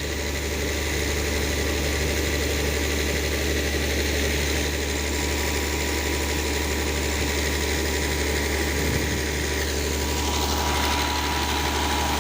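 Large 1000 PSI air compressor running steadily while flushing out a deep well, a constant engine drone with a broad hiss over it. A faint steady whine joins near the end.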